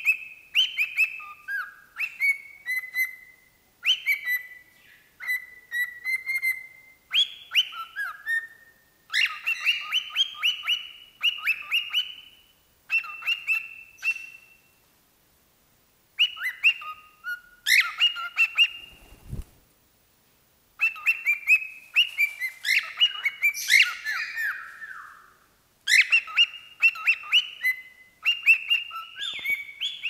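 A cockatiel singing a whistled song: repeated phrases of clear, high whistled notes, many stepping or sliding down in pitch, broken by a couple of short pauses.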